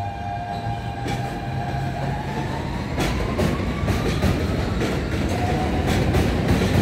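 New York City subway train running on elevated track and getting louder. A motor whine rises in pitch over the first few seconds, and from about three seconds in the wheels clack repeatedly over rail joints.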